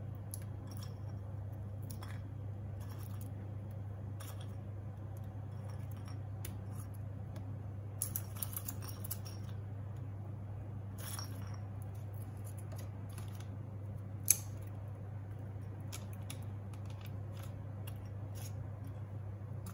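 Small scattered clicks and light rustles of walnut pieces being picked by hand from a ceramic plate and dropped onto brownie batter, with a brief run of clicks about eight seconds in and one sharper click about fourteen seconds in. A steady low hum runs underneath.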